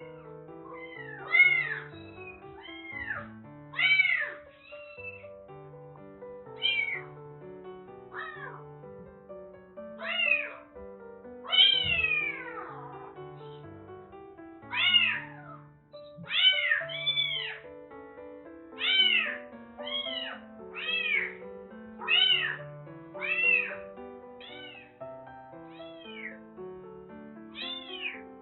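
A young kitten meowing over and over, about twenty short, high calls that each rise and fall in pitch, coming in clusters with short gaps between.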